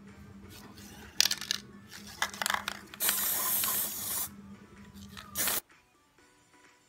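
Aerosol spray paint can hissing in several short bursts and one longer burst of about a second, with the last short burst near the end.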